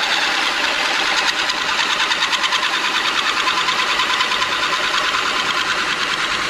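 Bench drill press running with a hole saw cutting into an aluminium cover plate, the cutter chattering in a fast, even rhythm as it is fed down. The press turns faster than suits the job: the speed should be lower for this cut.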